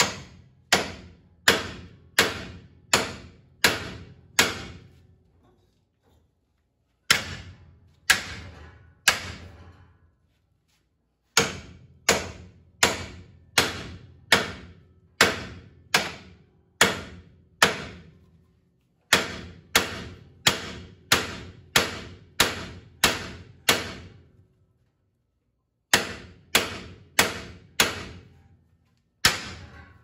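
Hammer blows on a long steel bar driven against the seized lower ball joint of a 1970 Chevy C10's front suspension, beating it to break it free of the spindle. Sharp strikes, each ringing briefly, come about one to one and a half a second in runs of several blows, with pauses of about two seconds between runs.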